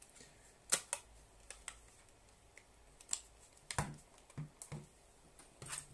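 Irregular small clicks and taps of plastic and metal parts being handled and fitted together as a Sony Walkman WM-50 cassette player's casing and battery contact are reassembled, with about eight sharp clicks spread unevenly.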